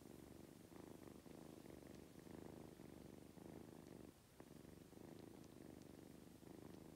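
Grey kitten purring softly, a low rumble that swells and eases about once a second with each breath, with a short break a little after four seconds in.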